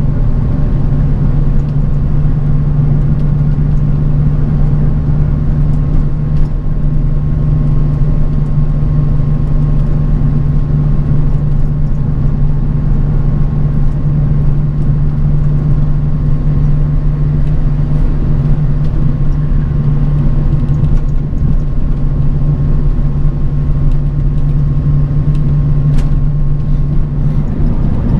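Bus travelling on the road, heard from inside: a steady low engine drone and road rumble with a faint steady whine and occasional light clicks.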